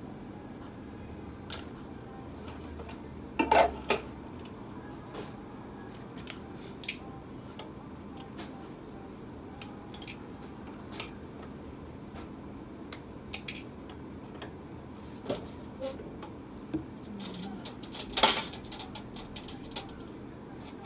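Sporadic light clicks and clinks, with two louder clattering knocks about three and a half seconds in and near the end, over a steady low hum.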